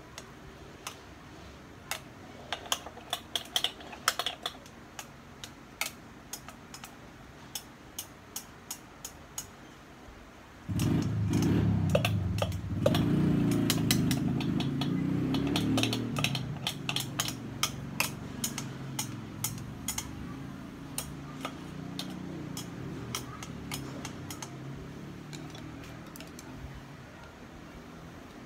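Chopsticks clicking and tapping against the pot rim and ceramic bowl as instant noodles are scraped out of a small electric cooking pot. About 11 s in, broth and noodles pour out of the tipped pot into the bowl with a sudden sloshing rush that is loudest for a few seconds and then eases off, while the tapping goes on.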